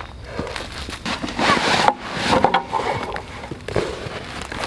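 Rustling and scraping of camp gear being handled, with a few light knocks; the busiest stretch is about a second to three seconds in.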